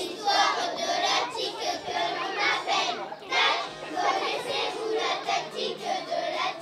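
Many children's voices at once, a group of children together.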